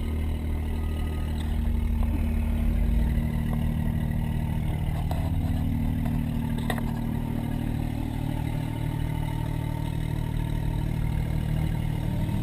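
Caterpillar D10R bulldozer's diesel engine idling steadily, heard from inside the cab, with a few faint clicks.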